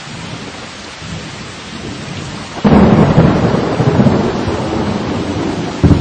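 Steady rain falling, then about halfway through a sudden loud thunderclap that rumbles on for several seconds; near the end another sharp crack.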